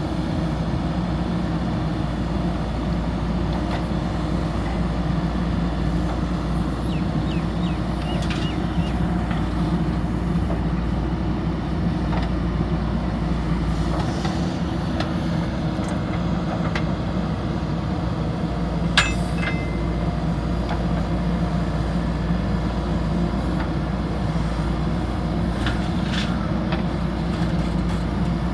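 JCB backhoe loader's diesel engine running steadily under work, with scattered clanks and knocks from the machine and the loading, one sharper knock about two-thirds of the way in.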